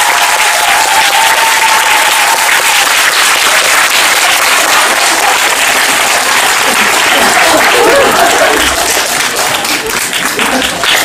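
Theatre audience applauding, a dense, steady clapping that carries on throughout.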